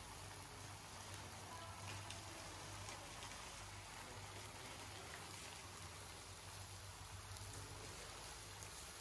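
Faint, steady sizzle and crackle of skewered chicken kebabs cooking in a cast-iron kazan, with a low hum underneath.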